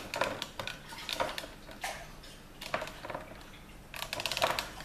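Hand-held tin opener clamped on a food tin, cranked round by hand. Its cutting wheel makes short bursts of small metallic clicks and ticks a second or so apart, the loudest burst near the end.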